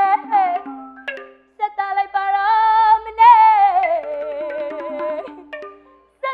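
A woman singing a Burmese classical melody with a wide, wavering vibrato: a short held note, a pause of about a second, then a long phrase that rises slightly and then slides slowly down, with light percussion faintly behind.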